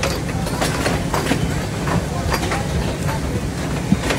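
Steady low hum of factory machinery, with scattered light knocks and plastic rustles as bagged small engines are set down into cardboard shipping crates.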